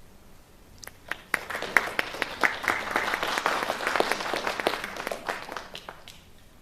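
Audience applauding: a few claps about a second in swell quickly into steady applause, which thins out and stops near the end.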